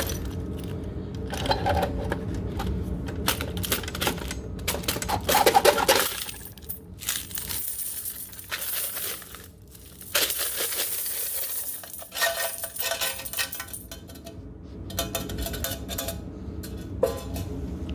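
Many coins clinking and spilling out of a payphone's coin box, in a run of rattling spills with one long continuous pour about two-thirds of the way through.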